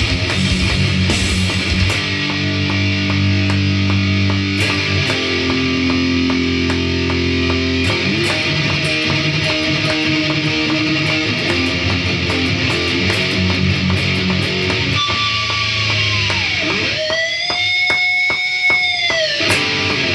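Electric guitar (an Ibanez with Burstbucker pickups) playing sustained chords through an EarthQuaker Devices Astral Destiny octave-reverb pedal, the chords changing every second or two. Near the end a note glides down in pitch and is held, pulsing rapidly.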